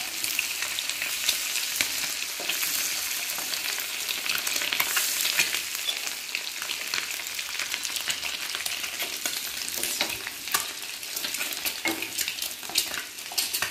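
Halved boiled eggs shallow-frying in hot oil in a frying pan: a steady sizzle full of small crackles and spatters. A spatula scrapes and knocks in the pan now and then as the eggs are lifted out, a few times near the end.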